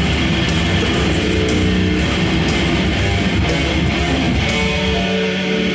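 A live metal band playing loud distorted electric guitars over drums. About five seconds in, the drums and cymbals drop out, leaving held guitar chords ringing.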